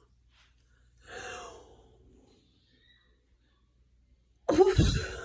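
A woman sighing close to the microphone: a soft breathy sigh about a second in, then a louder, heavier exhale near the end that rumbles on the microphone.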